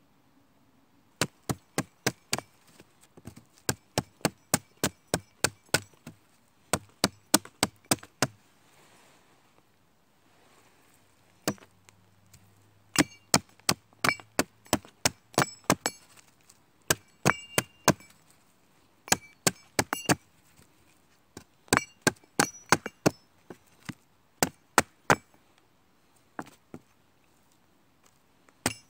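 Hatchet chopping at the end of a wooden stick, sending off shavings: runs of quick, sharp strikes, about three a second, broken by short pauses.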